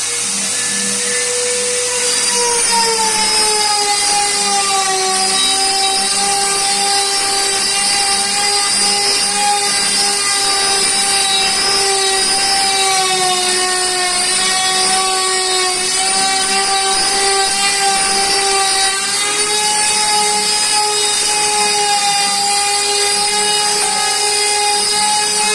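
CNC router spindle running as the machine cuts a job: a steady high whine with a hiss above it. The pitch drops a little about two seconds in and then wavers slightly.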